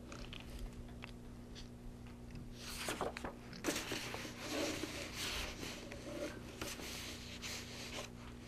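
Sheets of paper rustling and being turned, faint and in short spells, over a steady low electrical hum.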